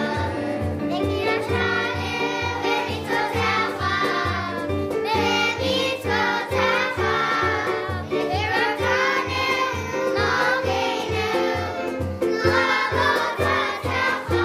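A class of young children singing a song together, accompanied on electric keyboard with a steady beat.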